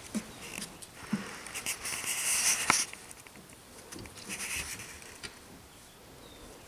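Doberman puppies scuffling and scrabbling at play: bursts of scratching and rustling with their paws, and a single sharp knock a little under three seconds in.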